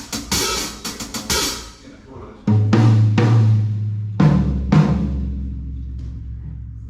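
DW Collectors maple drum kit being sound-tested: a quick run of snare and cymbal strokes. Then comes a single tom hit about two and a half seconds in, and a lower one about four seconds in, each left to ring out.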